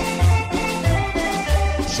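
Cumbia music played loud over a sonidero's sound system at a dance, with a steady bass beat under a pitched melody.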